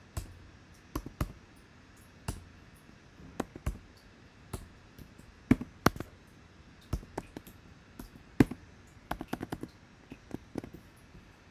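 Typing on a computer keyboard: irregular keystrokes, some single and some in quick runs, with short pauses between.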